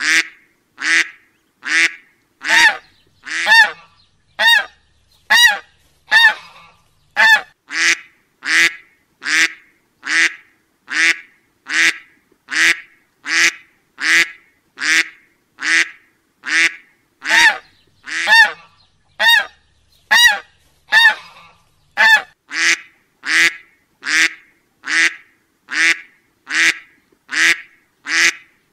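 A short, duck-like honk repeated at a steady pace, a little more than once a second, each honk nearly the same as the last, like a looped sound effect.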